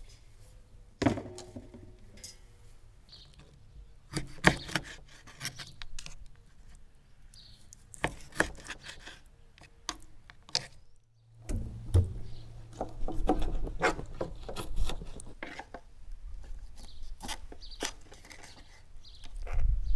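Food-preparation handling: a series of sharp knocks and smaller clicks and rubbing on a wooden surface, with a busier run of knocks from about halfway through.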